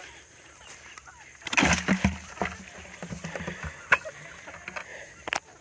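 Chunky mashed pears and corn husks tipped out of a plastic bucket onto wood-chip mulch: a wet splattering dump about one and a half seconds in, followed by scattered soft thuds and knocks as the fruit and the bucket's last contents fall out.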